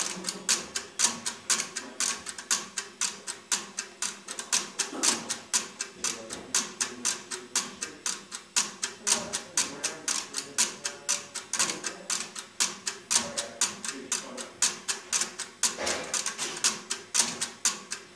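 NEC NC100 crossbar telephone exchange at work: its crossbar switches and relays clicking and clattering rapidly and irregularly, about five clicks a second.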